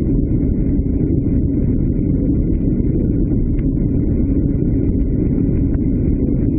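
Cabin noise of a VW Touran 1.6 TDI four-cylinder diesel (105 hp) holding about 212 km/h near its top speed. The engine runs at just over 4,000 rpm under full load, mixed with wind and tyre roar. It is a steady, deep drone that does not change.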